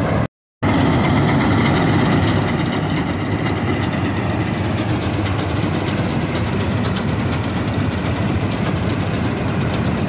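Swaraj combine harvester running steadily while cutting and threshing wheat: an even engine and machinery drone with a dense hiss over it. The sound drops out for a moment just after the start.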